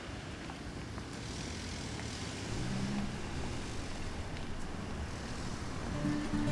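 Street ambience of road traffic going by: a steady low rumble with the hiss of a passing car. Music comes in near the end.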